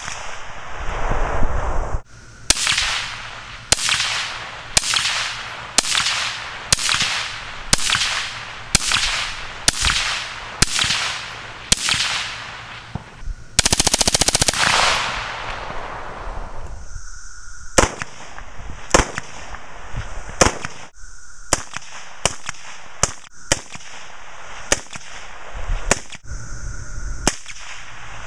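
Suppressed M16 rifle firing single shots about a second apart, each with a ringing echo, then a rapid full-auto burst of a couple of seconds near the middle, followed by more single shots at the same pace, sharper and shorter.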